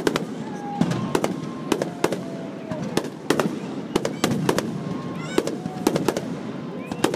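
Aerial fireworks shells bursting overhead in an irregular string of sharp bangs, about two a second.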